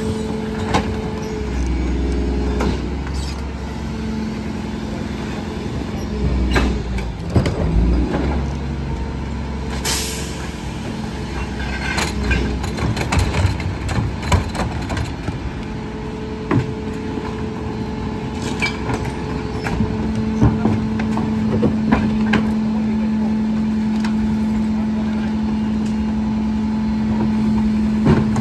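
Rear-loading garbage truck running at the curb: a steady engine hum with frequent clattering knocks and bangs as wheeled trash carts are tipped and bulky items are thrown into the hopper. A short burst of air hiss comes about ten seconds in, and the engine hum grows louder and steadier about two-thirds of the way through.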